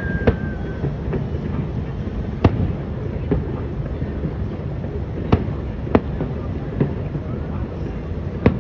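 Fireworks going off: about seven separate sharp bangs at uneven intervals, the loudest about two and a half seconds in, over a steady low rumble. A short, slightly falling whistle sounds right at the start.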